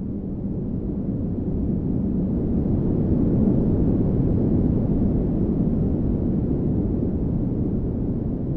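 Steady low rumbling wind noise on the microphone, cutting off suddenly near the end.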